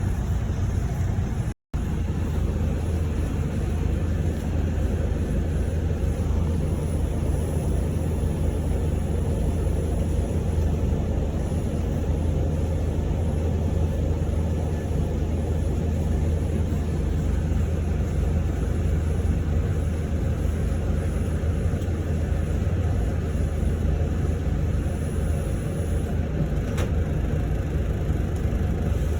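Steady engine and road rumble inside a moving Hong Kong public light bus (minibus) cabin, with a momentary dropout about two seconds in.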